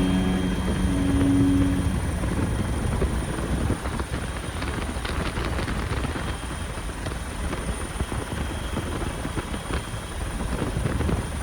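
Bell UH-1 Huey helicopter running, its rotor beating steadily. Background music fades out in the first two seconds.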